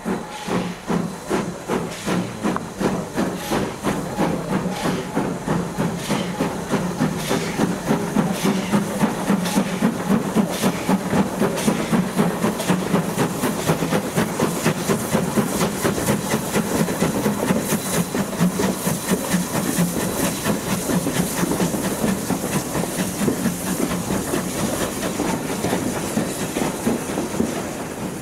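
Steam locomotive working under load: a rhythmic chuffing of exhaust beats with steam hiss. The beats come about two a second at first and quicken over the first ten seconds or so as the engine gathers speed.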